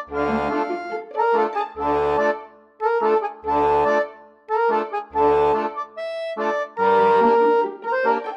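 Accordion background music: chords over a bass note that returns about every one and a half seconds.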